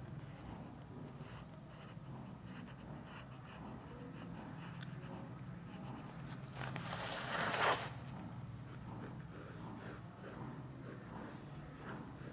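Coloured pencil scratching across paper in short sketching strokes, with one louder, faster scratch of about a second just past the middle, over a faint steady low hum.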